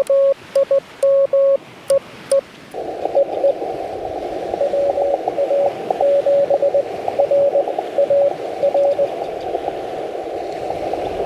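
Morse code from a Yaesu FT-891 transceiver: for the first two and a half seconds a clean, loud keyed tone of dots and dashes as the operator sends, then the receiver opens onto a narrow band of hiss in which a weaker station's Morse reply comes through, from about four and a half to nine seconds in.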